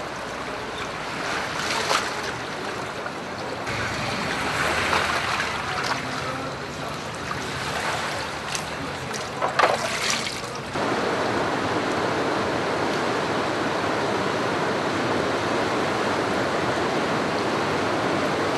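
Shallow floodwater sloshing and splashing as a person wades through it. About eleven seconds in, the sound changes abruptly to the steady rush of the flooding Drina river.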